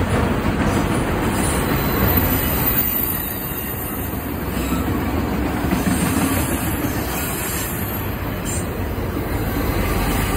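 CSX autorack freight cars rolling past, with a loud, steady rumble of steel wheels on the rails.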